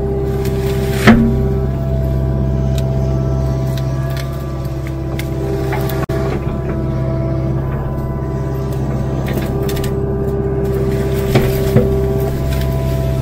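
Kubota KX057-4 compact excavator's diesel engine running steadily under load, with a pitched hydraulic whine that comes and goes as the boom and bucket work. A loud sharp crack about a second in and two smaller ones near the end come from the bucket ripping out brush and a small tree by its roots.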